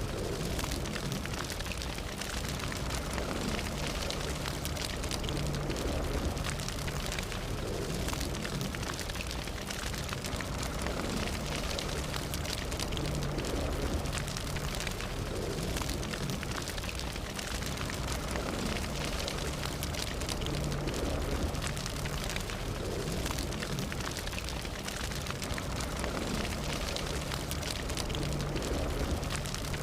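Fire burning steadily, with dense, continuous crackling over a low rumble.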